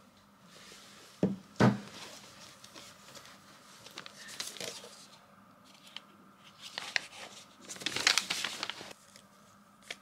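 Handling noises in a quiet room: two thumps a little over a second in, then several bursts of rustling and crinkling.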